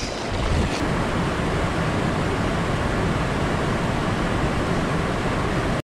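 Rushing mountain stream water, a steady even roar of white water that cuts off suddenly near the end.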